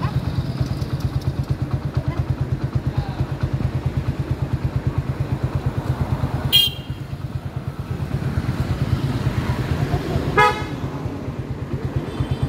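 An engine idling steadily with a fast, even low throb, and two short vehicle horn toots, one about halfway through and one near the end.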